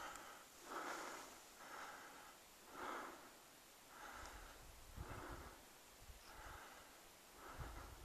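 A person breathing hard, one faint puff of breath about every second.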